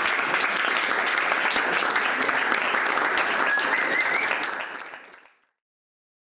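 Audience applauding, with a short whistle near the end, fading out about five seconds in.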